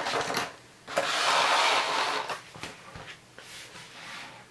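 Cardboard packaging rubbing and scraping as a model is lifted out of its box: a second-long stretch of scraping about a second in, with a few light handling clicks around it.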